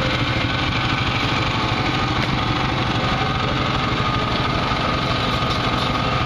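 A small engine running steadily at an even speed, a continuous drone with no change in pitch.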